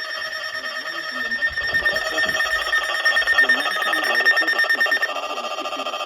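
Wireless emergency alert tone for a flash flood warning: a loud, harsh alarm of several tones pulsing rapidly. Its tone pattern changes about five seconds in.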